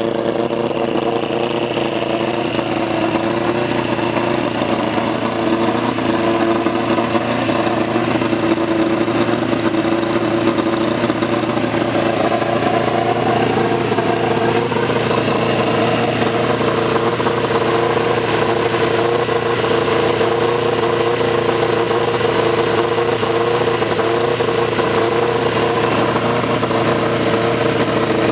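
Turbocharged Honda K-series four-cylinder engine in a Toyota MR2 idling steadily on its first start-up, with a brief waver in pitch about halfway through.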